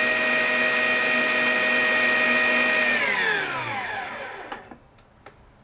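Electric stand mixer beating cake batter at low speed, its motor a steady hum. About three seconds in it is switched off and the hum falls in pitch and fades as the motor winds down, followed by a few faint clicks.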